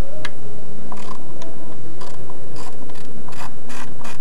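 Hand ratchet clicking as the upper intake manifold bolts on a Ford Escape V6 are worked loose: a few scattered clicks, then steady ratcheting at about four clicks a second from about two and a half seconds in.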